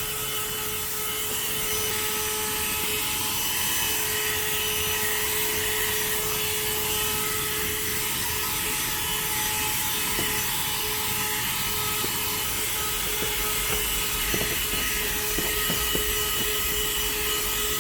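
CherylonPower cordless mini handheld vacuum running steadily, its motor giving a constant whine over a rush of air, as the nozzle is worked over sandy car carpet.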